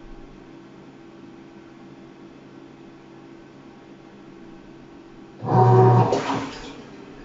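Sharp ES-KS70K-P washing machine running, with a faint steady hum. About five seconds in, a loud mechanical hum comes in for just over a second and then fades away.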